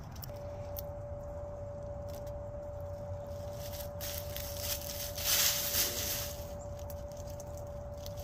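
Dry fallen leaves rustling and crackling under a chicken scratching and pecking, louder for a moment about five seconds in, over a steady low rumble and a steady high whine.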